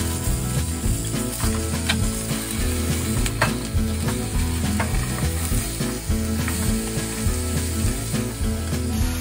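Slices of beef sizzling as they are laid into a hot frying pan, with a few sharp clicks of chopsticks against the pan.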